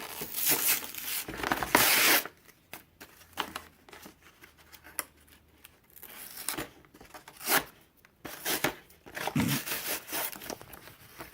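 Packaging of a new water heater pressure relief valve being torn open: loud bursts of tearing and crinkling in the first two seconds, then scattered snips, clicks and more tearing later on.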